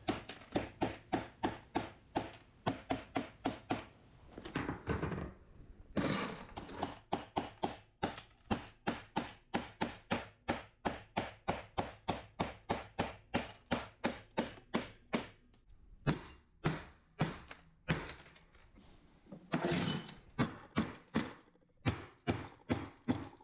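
Steel hammer blows chipping out ceramic floor tile and grout, about three strikes a second, broken twice by about a second of rougher, noisier sound.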